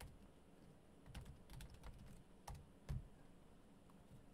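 Faint, irregular clicking of keys being typed on a computer keyboard, with a soft thump about three seconds in.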